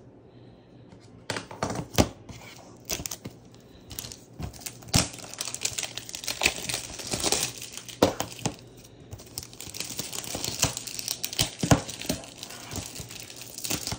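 Plastic shrink-wrap being torn and peeled off a new DVD case: crinkling and tearing with many sharp clicks and snaps, starting about a second in.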